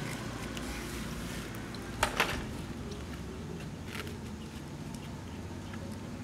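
Two quick sharp clicks about two seconds in, over a steady low background hum, with a few faint ticks later.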